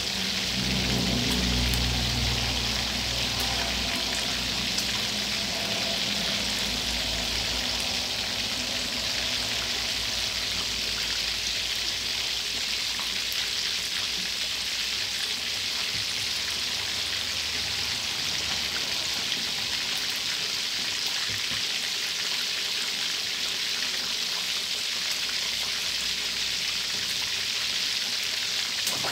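Sun-dried red tilapia deep-frying in a pan of hot oil, the oil bubbling around the fish in a steady sizzle. A low rumble sits under the sizzle during the first few seconds.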